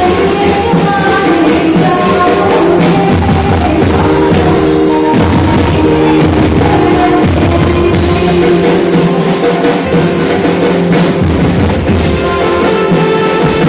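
Loud live band music through the stage PA: drums keeping a steady beat under held melodic lines.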